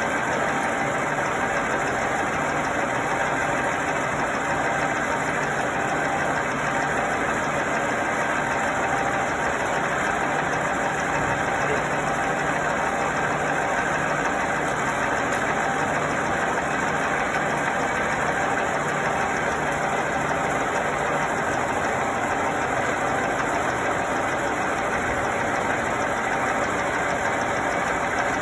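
Hitachi Seiki knee-type milling machine running, a constant mechanical hum with a faint steady whine.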